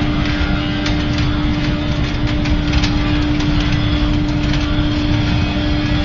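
Biomass sawdust burner firing at full output: a steady, loud rush of flame with a constant hum from its blower, broken by scattered sharp crackles and pops from the burning sawdust.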